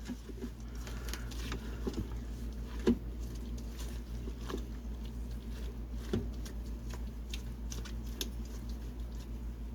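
A spoon stirring and scraping a thick, wet tomato-and-spice mixture in a pot, with soft irregular squelches and a light knock against the pot about three seconds in, over a steady low hum.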